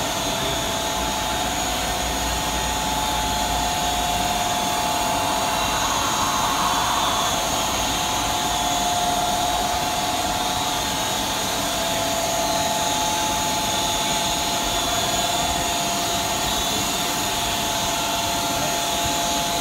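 Automatic rollover car wash running steadily, its blowers or motors making a constant rushing noise with a steady whine.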